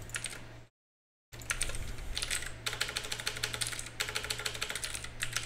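Rapid typing on a computer keyboard, a quick run of keystroke clicks that starts about a second in after a brief total cut-out of the sound. A low, steady hum runs underneath.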